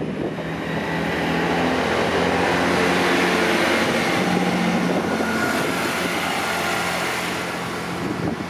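Class 165 diesel multiple unit passing close by: a steady drone from its underfloor diesel engines under the rush of wheels on rail. The noise is loudest about three seconds in and eases off toward the end as the train moves away.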